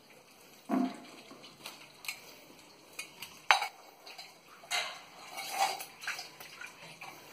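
Small steel tumbler knocking and scraping on a wet concrete floor in a string of separate clinks and scrapes. A sharp metallic clink about three and a half seconds in is the loudest.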